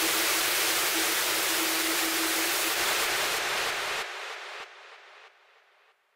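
Loud, steady hiss of static-like noise with a steady low tone underneath, dropping away in steps after about four seconds to near silence.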